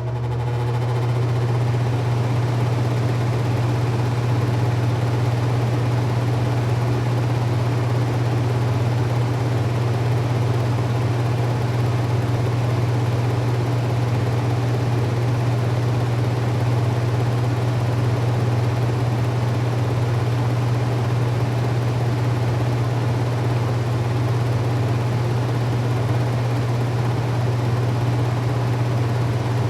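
Kitchen range hood extractor fan running steadily: a low hum under an even rush of air, swelling over the first second or so and then holding constant.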